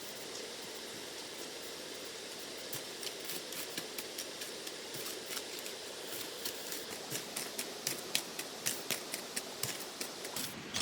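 A steady hiss with a run of quick, sharp clicks or snips that starts about a quarter of the way in and grows louder and more frequent toward the end.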